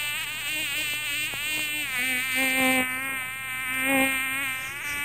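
A continuous buzzing drone, rich in overtones, whose pitch wavers and shifts slightly without a break.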